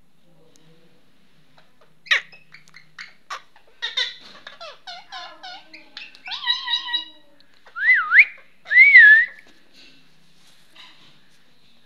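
Indian ringneck parakeets chattering in a quick run of short chirping notes, then two loud whistles with swooping pitch about two-thirds of the way in. A single sharp click sounds about two seconds in.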